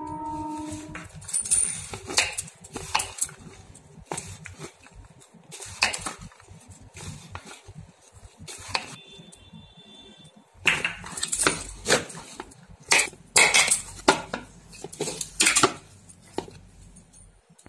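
Hands mixing flour and milk into a dough in a plastic bowl: irregular clicks and knocks of the hand and glass bangles against the bowl, coming thick and fast in the second half. A steady pitched tone sounds for about the first second.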